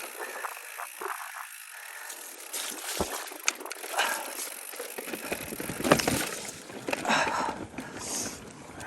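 Mountain bike riding over a rough, rocky trail: a steady rush of tyre noise on dirt and stone, broken by many sharp knocks and rattles from the bike, growing louder and busier about halfway through.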